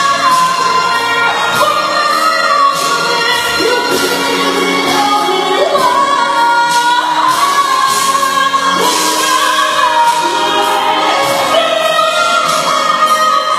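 Singing with instrumental accompaniment: a slow melody with long held notes over a steady backing.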